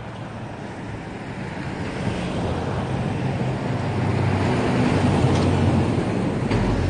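A motor or engine running with a steady low hum and rumble that grows louder. There is a light click about five seconds in and a thump near the end.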